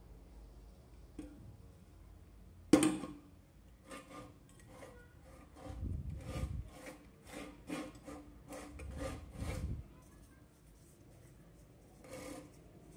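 Hand-handling noise on a loudspeaker with a wire coil wound on its magnet. A sharp knock comes about three seconds in, then a quick run of rubbing, scraping strokes, two or three a second, with low thumps, for several seconds.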